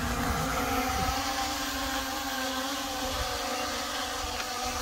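A quadcopter drone's four brushless motors and propellers making a steady, many-toned buzzing hum as it flies overhead.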